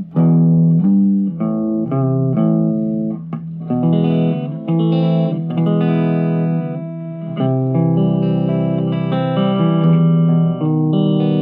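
Electric guitar played through a Marshall MG15MSII micro stack amp on its clean channel, with its stock speakers: a steady run of picked notes and chords.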